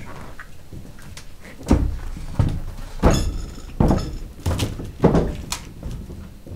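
A man's footsteps walking across a raised stage platform: about seven thudding steps, one every two-thirds of a second.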